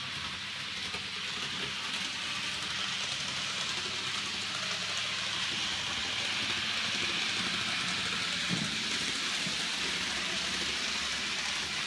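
N gauge model Peak diesel locomotive running on its track at full power: a steady mechanical running noise from its motor and gears that grows slightly louder over the first few seconds. It has a slight ticking, which is suspected to be a split gear.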